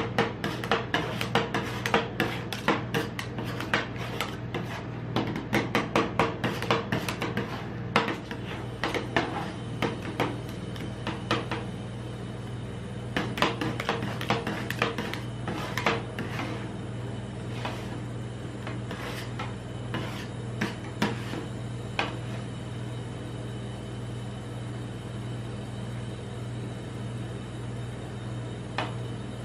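Metal spatulas chopping and scraping ice cream on the steel cold plate of a rolled-ice-cream machine: rapid clacking taps for the first several seconds, thinning to occasional taps and scrapes, then only a few near the end. A steady low hum runs underneath.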